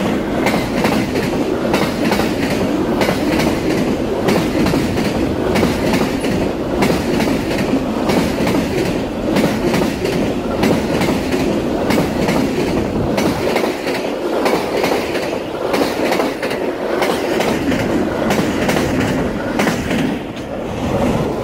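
Amtrak Auto Train's autorack cars rolling past close by: a steady rumble of steel wheels on rail, peppered with frequent clicks from the wheels over the track. The sound eases slightly near the end as the last cars go by.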